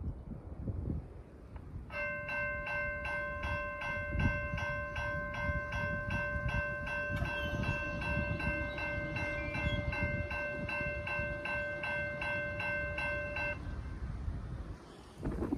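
Railroad grade-crossing warning bell ringing steadily at about two strikes a second, signalling an approaching train. It starts a couple of seconds in and stops shortly before the end, once the crossing gates are down. Wind rumbles on the microphone throughout.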